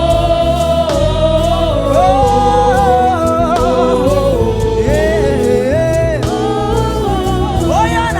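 Gospel music: voices sing long, held notes with vibrato, at times in two-part harmony, over a band with bass and drums.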